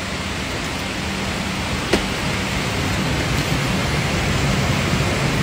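Steady rushing air of a Boeing 777-200 airliner cabin's air-conditioning and ventilation, with a single sharp click about two seconds in and a low rumble swelling slightly toward the end.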